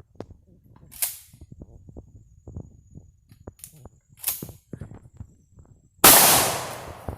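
Shotgun fired once near the end: a single loud blast that dies away over about a second. Quieter scuffs and rustles come before it.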